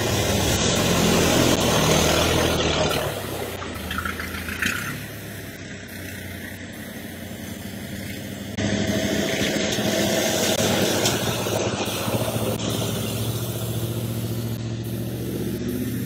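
1985 Ford Bronco's engine running as the truck drives off road. The sound rises and falls, with a sudden jump louder about halfway through.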